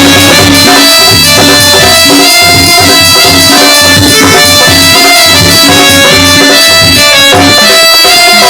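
Loud instrumental stage music: a drum beat under a sustained melodic line with held notes.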